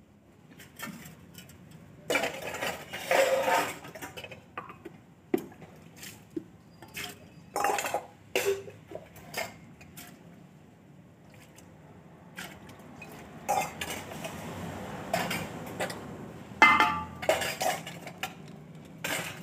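Stainless steel bowls and pots clanking and clinking irregularly as they are handled and washed by hand, with several louder ringing knocks.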